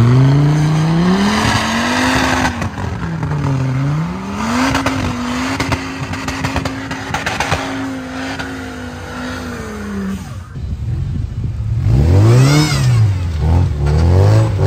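Off-road trial buggy engines revving hard under load as the buggies crawl over rough, muddy ground, the engine pitch rising and falling in long sweeps. Near ten seconds the sound changes to a second buggy, whose engine revs up and down in quicker, sharper bursts.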